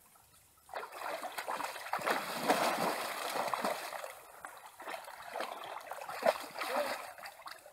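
A horse wading through a shallow pond beside a person wading in the water, its legs splashing and churning the water. The splashing starts about a second in and is loudest over the next couple of seconds.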